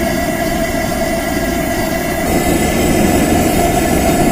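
Coleman 424 dual-fuel stove's pressurised liquid-fuel burner roaring steadily on maximum under a pot of water. Its tone shifts about two seconds in.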